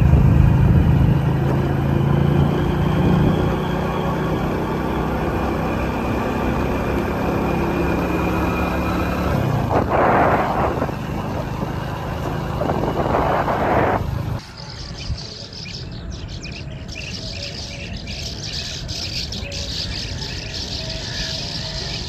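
Engine of a small vehicle running steadily while riding along a road, with wind noise and two louder rushes of noise around the middle. About fourteen seconds in the sound cuts to many birds chirping high and continuously from a flock.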